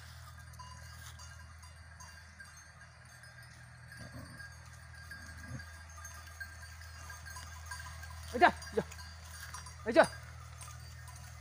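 Goats bleating: three short, loud calls in the last few seconds, two close together and then one more, over a low steady background.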